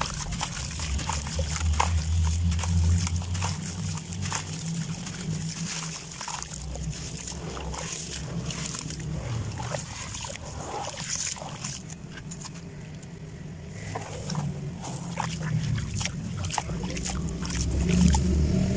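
Gritty bajri (gravel-sand) blocks crumbling and squelching in hands in a basin of water: crunchy crumbles falling in, with sloshing and splattering as the wet material is kneaded. Many small crackling clicks, with a low rumble underneath.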